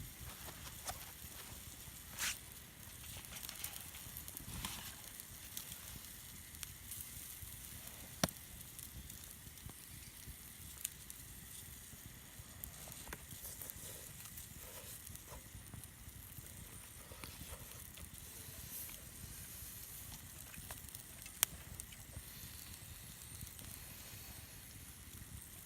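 Wood campfire burning with a steady soft hiss and scattered crackles, with a few sharp pops, the loudest about eight seconds in and near twenty-one seconds.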